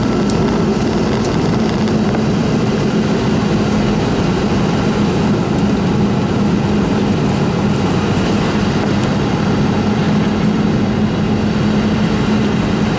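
Steady cabin noise inside a Boeing 717-200 airliner in flight: the even rush and drone of its two Rolls-Royce BR715 turbofans, with a steady low hum.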